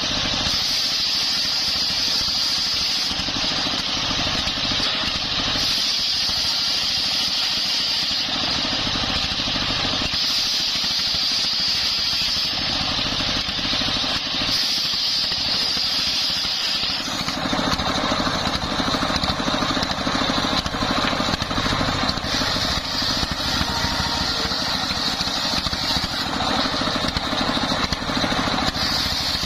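Belt-driven circular saw blade ripping timber lengthwise, with the stationary engine that drives it running steadily underneath. The blade's high cutting whine comes and goes as the plank is pushed through.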